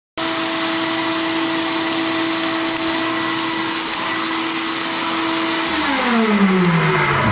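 Media blast cabinet running: a loud, steady hiss with a motor's steady whine. About six seconds in, the whine slides down in pitch as the motor winds down after being switched off, which marks the end of the blasting.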